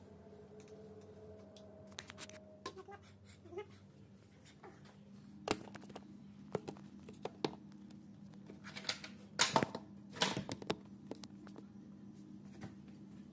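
Scattered knocks and clatter from a mop and a phone being handled during house cleaning, loudest in a cluster about nine to ten seconds in, over a steady low hum.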